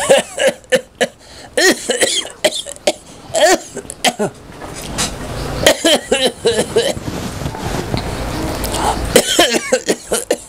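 A person coughing again and again, in short harsh bursts with some throat clearing between them.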